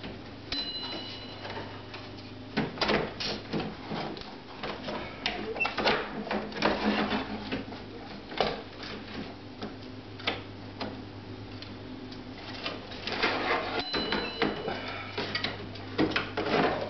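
Portable manual typewriter being handled and tilted up out of its metal case base, its mechanism and the case clattering and knocking in irregular bursts.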